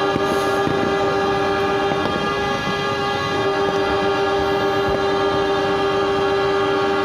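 Several diesel locomotive air horns blowing together in long, overlapping steady blasts, a chord of different pitches. The strongest horn drops out about two seconds in and comes back a second later, while the others keep sounding.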